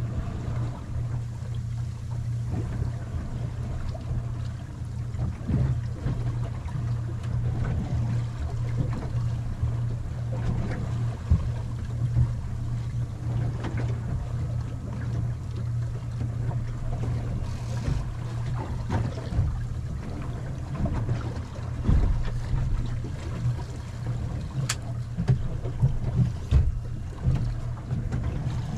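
Water rushing and slapping against the hull of a small anchored boat in a fast-running tide, over a steady low rumble. There are a few knocks, and one sharp click near the end.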